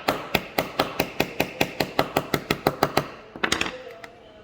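Small hammer tapping a pin into a watch bracelet link: quick, even taps about five a second, stopping about three seconds in, followed by a brief flurry of lighter clicks.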